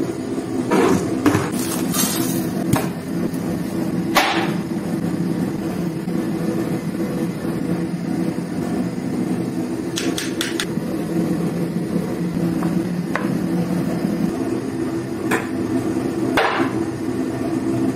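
Sharp knocks and clatters, about a dozen scattered through, over a steady low hum.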